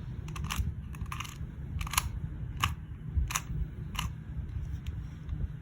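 QiYi 2x2 speed cube being turned through an algorithm: a series of sharp plastic clicks as the layers snap round, roughly one or two a second, over a low steady hum.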